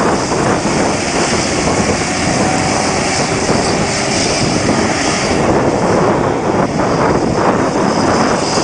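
Road train hauling a string of side-tipper trailers rolling past and pulling away, a loud, steady noise from the passing trucks.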